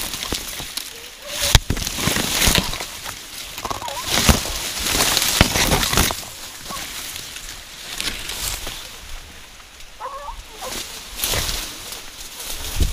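Dense sugarcane thicket being pushed through: stalks and dry leaves crashing and rustling in irregular surges, the loudest about one and a half and five seconds in. A few faint, brief animal calls come through now and then.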